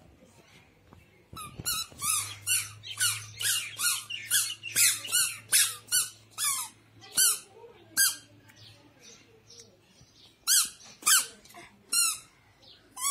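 A toddler's squeaker shoes chirping with each step: a quick run of high, sharp chirps about three a second, thinning to single chirps in the second half.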